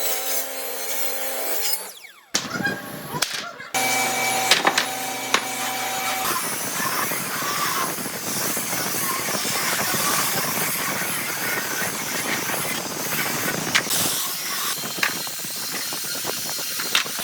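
Power tools working solid wood: a motor's steady whine that cuts off suddenly about two seconds in, more motor hum, then from about six seconds a long stretch of rough, even noise of a tool biting into the wood.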